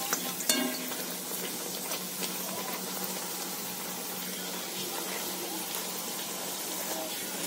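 Puris deep-frying in hot oil in an aluminium kadhai, a steady sizzle, with a few clicks of a wire-mesh skimmer against the pan about half a second in. A low steady hum runs underneath.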